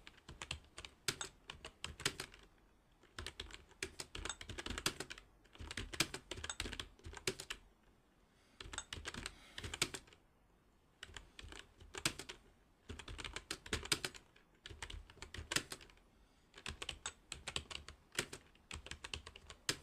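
Computer keyboard being typed on in short runs of keystrokes with brief pauses between them: practice key drills on the E, I, D and K keys with thumb presses of the space bar.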